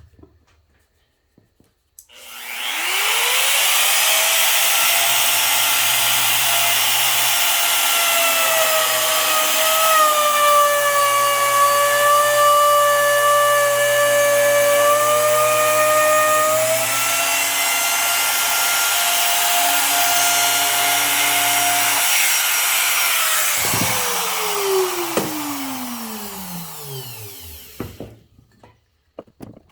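Wood router fitted with a quarter-inch core box bit, spinning up to a high whine about two seconds in and cutting a groove in wood, its pitch dipping slightly under load for several seconds. Near the end it is switched off and winds down with a long falling whine.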